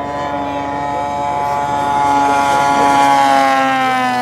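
Radio-controlled Edge 540 aerobatic model plane making a low pass: its engine and propeller drone grows louder, then drops slightly in pitch as it goes by near the end.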